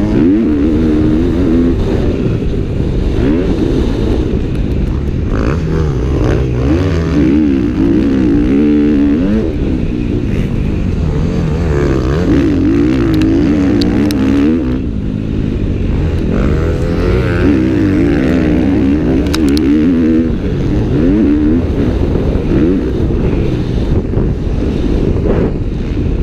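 Onboard sound of a KTM 250F's four-stroke single-cylinder motocross engine under hard riding, its pitch rising and falling over and over as the throttle is opened and shut and the gears are changed.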